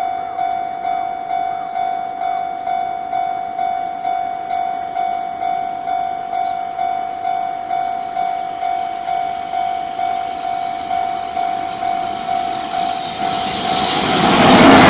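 Japanese level-crossing warning bell ringing, an even electronic ding repeating about every half second or so. Near the end a freight train arrives at the crossing and its loud rushing noise swamps the bell.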